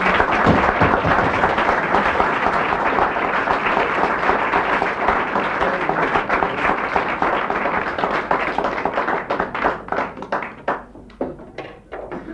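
Audience applauding: a dense, steady clapping that thins out to scattered single claps near the end.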